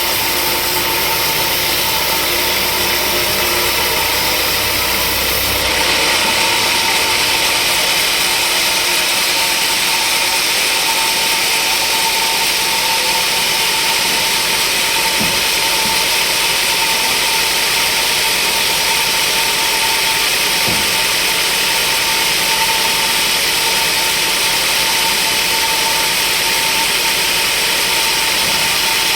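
Sawmill machinery running steadily, with a constant hum and a strong high hiss. About six seconds in, the low rumble drops away and the hiss gets a little brighter.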